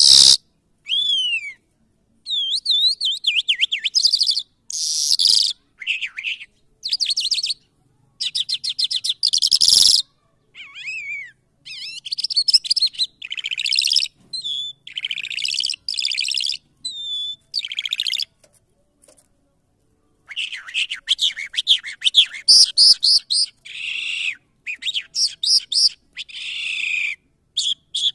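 A caged lark singing: rapid, varied phrases of chirps, trills and quick whistled glides, in bursts separated by short pauses. The song stops for about two seconds just past the middle, then resumes.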